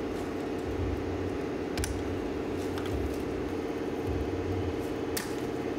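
Steady low mechanical hum, with a few sharp clicks about two seconds and five seconds in.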